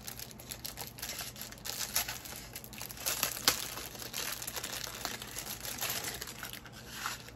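Packaging crinkling and rustling as it is handled and pulled open by hand, with one sharper crackle about three and a half seconds in.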